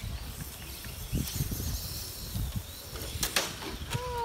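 Outdoor ambience: a low rumble with faint bird chirps, and two sharp clicks a little past three seconds in.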